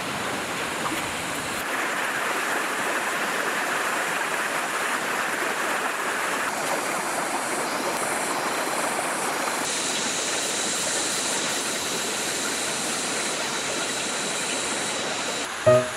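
Shallow rocky creek running: a steady rush of flowing water that shifts in tone a few times.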